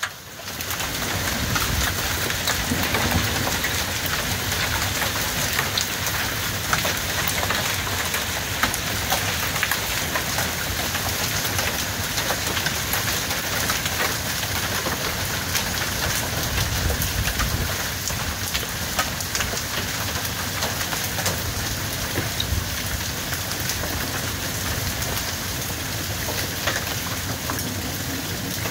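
Heavy rain falling steadily, a dense hiss of countless drops hitting the ground, roof and cars.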